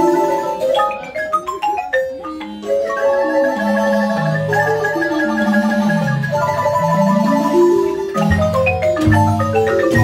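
Guatemalan marimba ensemble, several players on two wooden marimbas, playing a lively piece. The melody is held in rolled notes over a bass line that steps down in pitch again and again. About a second in, it thins briefly to a few sharp single strikes, and heavier low beats come in near the end.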